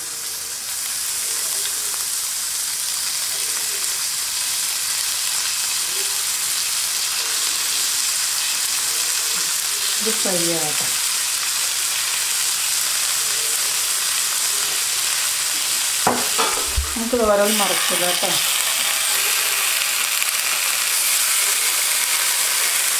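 Marinated tilapia pieces sizzling steadily as they shallow-fry in oil in a grill pan, while a silicone spatula turns them. A few short, wavering pitched sounds come about ten seconds in and again around seventeen seconds, with a soft knock among them.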